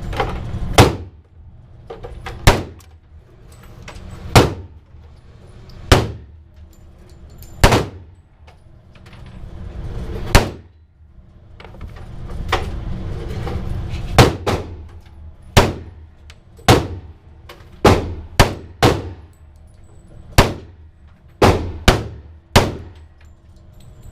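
Pistol shots from a Sig Sauer 1911 in .45 ACP, fired one at a time. They come slowly at first, about one every two seconds, then follow more quickly from a little past halfway, each a sharp crack with a short echo.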